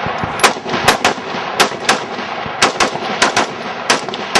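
Rifle fitted with a compensator firing a rapid string of about ten shots, several in quick pairs, each a sharp crack.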